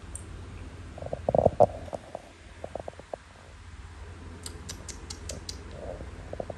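Kittens playing on a fabric sofa back among a plastic bag and laundry basket: a few soft thumps about a second in, then scattered taps, and a quick run of light, sharp clicks near the middle.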